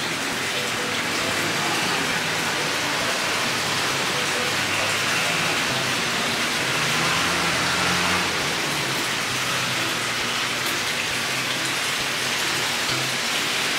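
Hot-spring water pouring steadily from a spout into the bath, a continuous splashing hiss.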